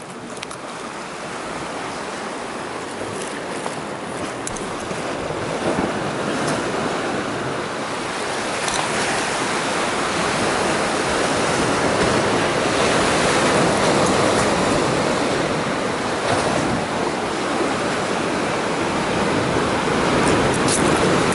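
Sea surf breaking on a rocky shore, a steady rushing wash that grows gradually louder, with a few faint clicks.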